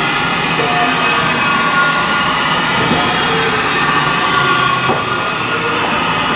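Haas VF-5D vertical machining center's axis drives (servo motors and ball screws) whining steadily as an axis is jogged back and forth in manual. The axes sound healthy.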